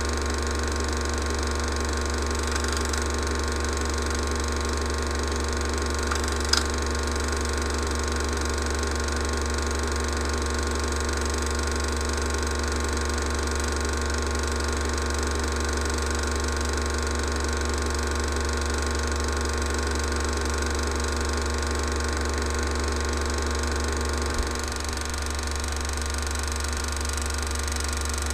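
A 16mm cine projector running steadily with a low whirring hum, with one sharp click about six and a half seconds in and a slight drop in level near the end.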